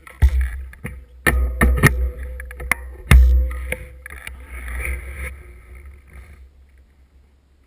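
Mountain bike rolling over a gravel track, its frame and camera mount rattling with sharp knocks and clicks over a heavy rumble of wind and vibration on the microphone. The noise dies away in the last second or two as the bike comes to a stop.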